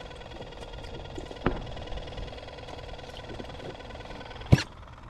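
A small motor on the boat hums steadily with several even tones. There is a sharp click about a second and a half in, and a louder click near the end, after which the hum drops away.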